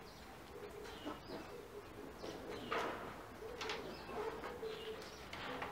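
Faint cooing of a dove: low, soft notes repeated on and off. Soft scuffs of footsteps are heard around the middle.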